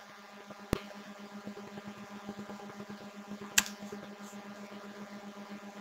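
Faint steady electrical hum with a string of even tones above it, broken by two short sharp clicks about three seconds apart.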